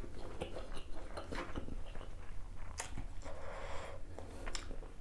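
A person chewing and biting into spicy duck curry close to the microphone, with many short mouth clicks throughout.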